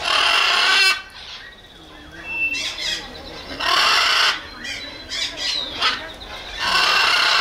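Macaw screeching: three loud, harsh squawks, each under a second long, spaced about three seconds apart, with quieter sounds between them.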